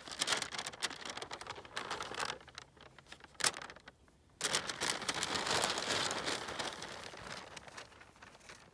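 Large paper map crinkling and rustling as it is handled and folded, in two stretches with a single sharp crackle between them.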